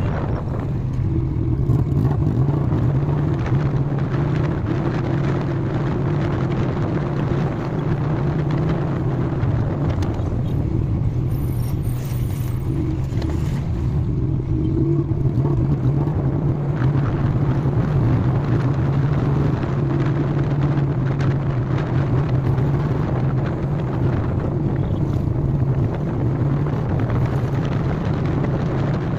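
Royal Enfield Classic 350's single-cylinder engine running steadily at highway cruising speed, heard from the rider's seat with wind noise on the microphone.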